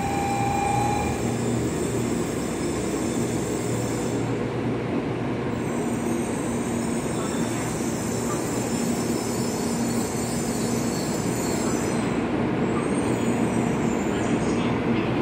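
N700A Shinkansen train moving slowly along the platform as it pulls out: a steady hum and rolling noise with a faint squeal from the wheels.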